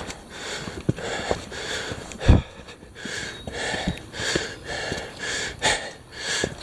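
A hiker breathing hard in quick, rhythmic breaths while climbing a steep rock slab, short of breath from the ascent. Footsteps and knocks on the bare rock come between the breaths, with one heavy thump about two seconds in.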